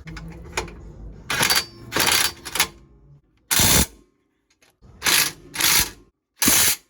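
Ratchet wrench being worked in short strokes on the skid plate's bolts: about seven quick bursts of clicking.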